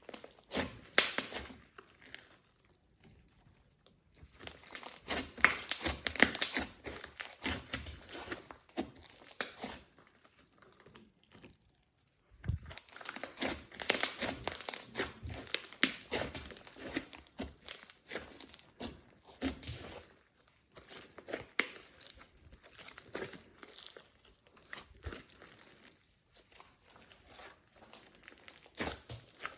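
Glossy slime being squished, stretched and folded by hand, making sticky crackling and popping clicks in irregular bursts, with a couple of short pauses.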